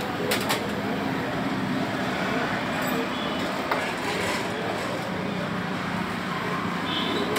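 Steady roadside traffic and engine noise, with two short clicks about half a second in.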